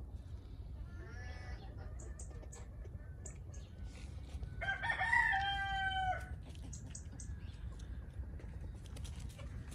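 A chicken crowing once, about halfway through: a call of about a second and a half ending in a held note, with soft clucking before it and faint short high chirps around it.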